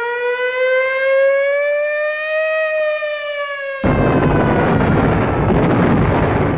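Air-raid siren wailing, its pitch rising slowly and then starting to fall. About four seconds in, a loud bomb explosion breaks in suddenly, and its rumble carries on over the fading siren.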